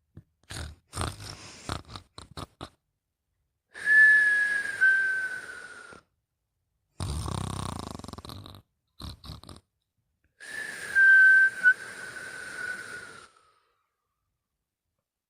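Snoring in sleep: a few short choppy breath sounds, then two long whistling breaths whose pitch falls slightly, with a rough, low snore between them.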